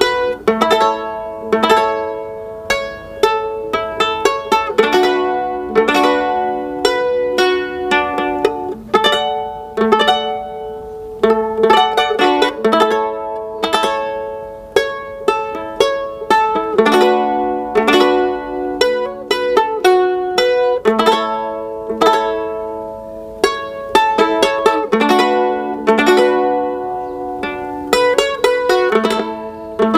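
Solo lute playing an instrumental melody of plucked notes that ring and fade, with several strings sounding together at times.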